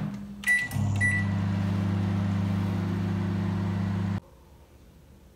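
LG convection microwave oven being started: two short keypad beeps, then the oven runs with a steady low hum that cuts off suddenly near the end.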